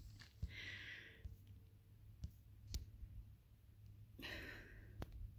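Near silence: faint low background hum with two short, soft, breath-like hisses and a few faint ticks.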